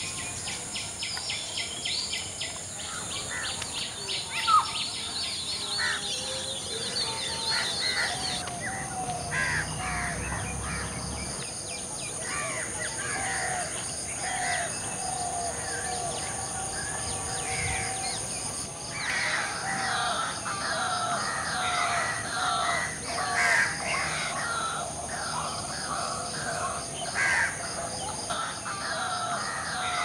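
Mixed calls and songs of several wild bird species at once: short repeated notes and chirps throughout, with a rapid ticking series in the first several seconds, over a steady high-pitched hum.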